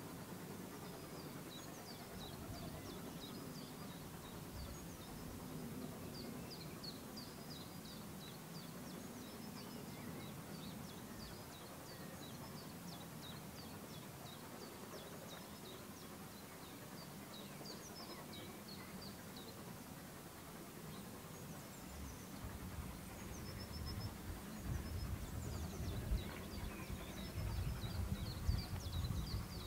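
Birds singing with many short chirps over a quiet rural background. A distant steam train approaches, its low uneven rumble growing louder over the last several seconds.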